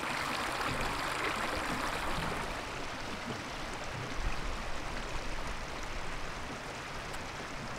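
Flowing water: a steady rush of floodwater running over and beside a road.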